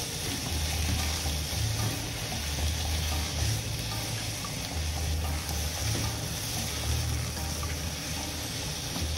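Sliced beef and onions sizzling steadily in a frying pan on a gas stove while being stirred, with a low regular pulse underneath.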